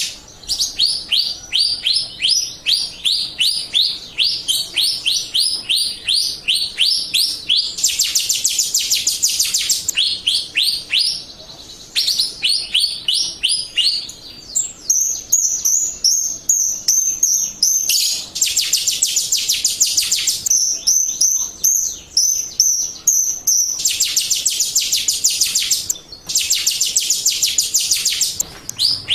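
Jalak Rio bird singing: fast runs of high, sharply falling chirps, several a second, broken by brief pauses and mixed with stretches of denser, buzzier trilling.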